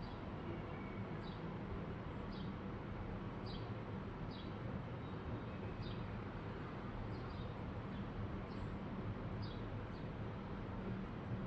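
A parrot giving short, high chirps that fall in pitch, about one a second, over a steady low hum.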